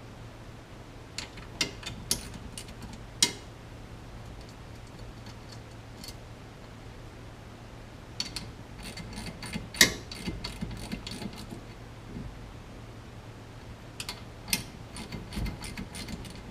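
Small metal steering-wheel hardware clicking and clinking as it is handled, in scattered clusters: a few sharp clicks in the first few seconds, a busier run about eight to eleven seconds in, and more near the end, over a steady low hum.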